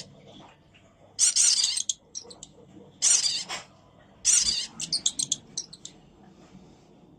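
Mouse squealing in distress while being hunted by a cat: three high, wavering squeals followed by a quick run of short squeaks.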